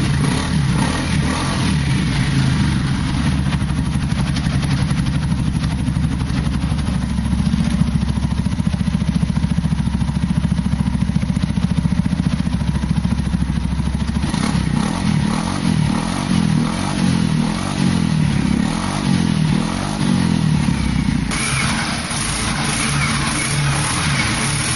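Linhai Aeolus 300 scooter's single-cylinder four-stroke engine running through a newly fitted large aftermarket exhaust. It idles steadily at first, then a little past halfway the throttle is blipped again and again, the pitch rising and falling several times.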